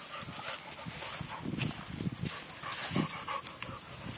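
Boxer dog panting in short, uneven bursts of breath.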